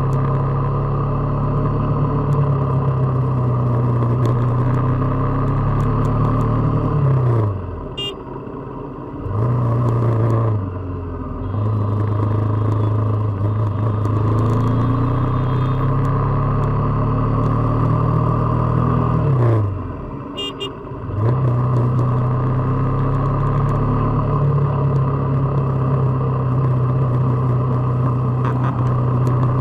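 KTM RC 390's single-cylinder engine and exhaust pulling under way, a steady drone that climbs slowly in pitch. Twice, about seven and nineteen seconds in, the revs fall sharply and the sound dips for a second or two before picking up again.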